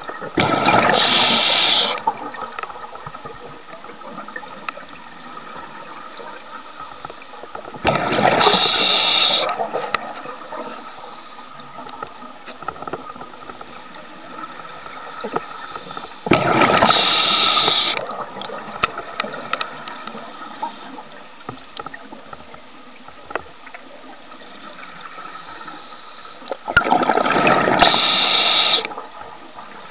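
Scuba diver's regulator breathing underwater: four loud rushes of exhaled bubbles, each a second or two long, roughly every eight to ten seconds, with a quieter steady noise between breaths.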